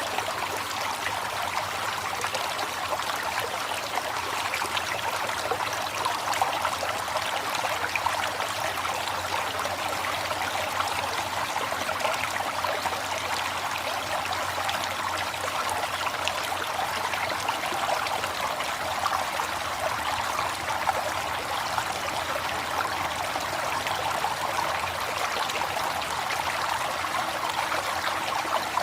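River water flowing steadily, a continuous rushing and trickling over rocks with no pauses.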